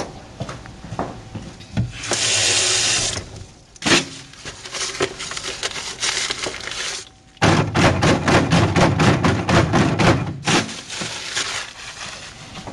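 Tap water running into a plastic bedpan at a sink and splashing in it as the bedpan is rinsed. It comes in spells, with handling knocks between them. The longest and loudest spell runs about three seconds in the second half.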